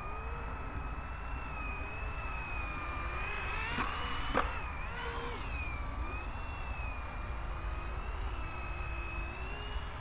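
Electric Blade 120 SR micro RC helicopter flying, its motor and rotor whine wavering up and down in pitch as the throttle changes. A steady low rumble runs underneath, and two short clicks come about four seconds in.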